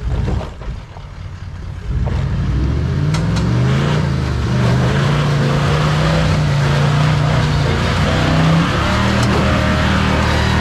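Toyota LandCruiser 70-series ute's engine working under load as it climbs a slippery, rutted clay track. It is quieter for the first two seconds, then revs up and stays loud, its pitch rising and falling as the driver works the throttle.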